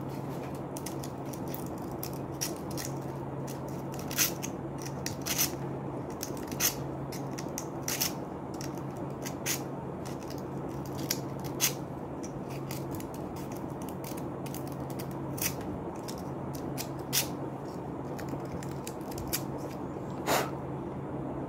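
Irregular small clicks and scrapes as an opened relay's contacts are worked and cleaned by hand, over a steady low hum.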